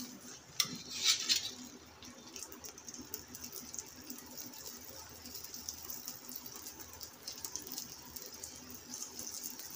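Lachha paratha frying in ghee on a hot tawa: a steady, crackly sizzle. Two louder bursts of sizzle in the first second and a half as the paratha is turned over with tongs and laid back down.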